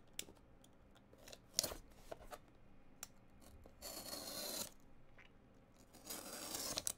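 Box cutter slicing through the seal of a cardboard trading-card box: a few light clicks, a sharp one about a second and a half in, then two short scraping cuts, one about four seconds in and one near the end.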